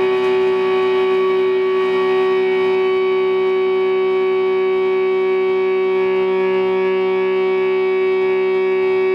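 Electric guitar feedback through an amplifier, held as a steady drone of several sustained pitches at once, one low note standing out above the rest. There are no plucked notes or rhythm.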